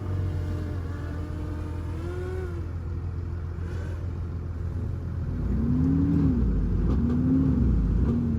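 Heavy diesel engine of earthmoving equipment running under load. Its pitch rises and falls briefly about two seconds in, then twice more, louder, near the end, as the throttle is opened and eased off.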